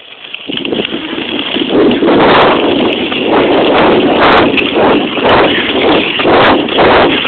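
Wind buffeting the microphone of a camera carried at a run, with heavy footfalls jolting it about twice a second; the noise turns loud about half a second in.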